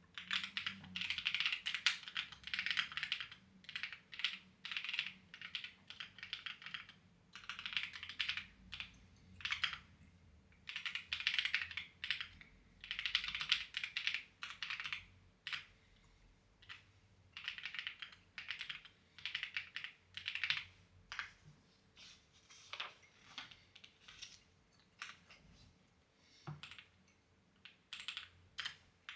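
Clacky computer keyboard being typed on in quick runs of keystrokes with short pauses between; the runs thin out into a few short taps near the end.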